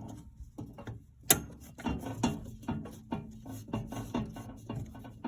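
Irregular clicks and knocks of circuit breakers and the breaker panel being handled, with one sharp snap about a second in.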